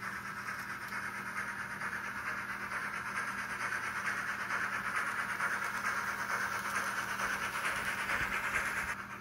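N scale Union Pacific Challenger model's ESU LokSound V5 micro decoder playing a UP Challenger steam sound file through its tiny speaker as the locomotive runs: rapid, steady steam chuffing with a tinny, hissy tone, growing louder and then dropping sharply near the end.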